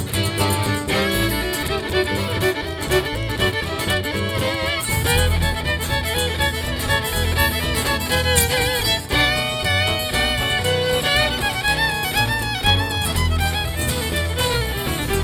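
Live country band playing an instrumental break: a fiddle carries the melody with vibrato over a steady bass line.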